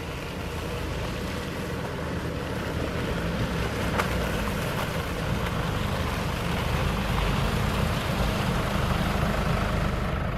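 A convoy of Jeeps and other 4x4 off-road vehicles driving slowly along a muddy dirt track: a steady rumble of engines with tyre and wind noise, getting slightly louder as they approach.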